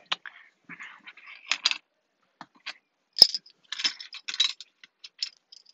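Small hard items clinking and rattling as the truck's console compartment is rummaged through and cleared of trash, with one sharp click about three seconds in.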